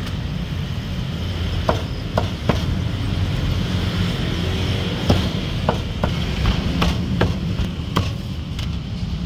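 Meat cleaver chopping a bone-in roast duck on a round wooden chopping block: about ten irregular sharp knocks, more of them in the second half, over a steady low rumble.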